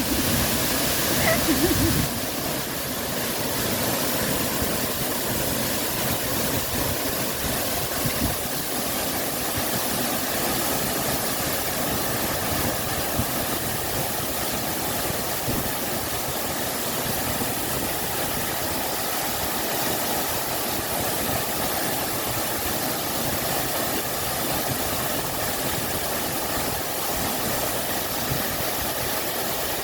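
Water rushing steadily over a waterfall into a stream, a constant even rush of white water.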